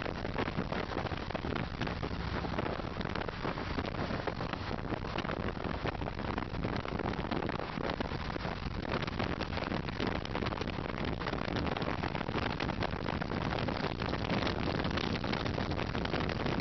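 Steady rush of wind and road noise at highway speed, heard from a moving vehicle in traffic, with no distinct engine note standing out.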